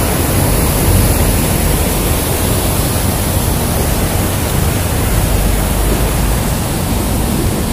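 Wind buffeting the microphone: a steady, loud rushing noise with a heavy, uneven low rumble.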